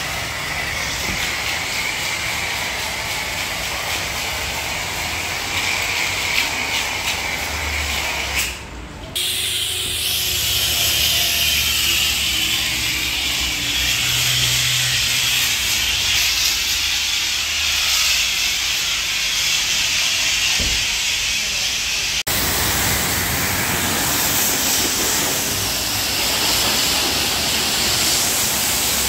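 High-pressure washer spray hissing steadily as foam and water are blasted onto a car's bodywork, the sound changing abruptly twice.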